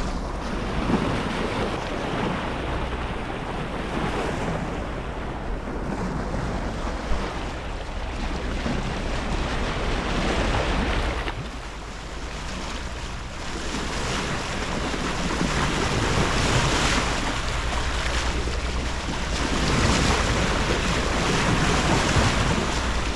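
Sea water washing and surging along a sailboat's hull, swelling and easing every few seconds, with wind buffeting the microphone. Under it, the steady low drone of the boat's motor, running because the wind has died.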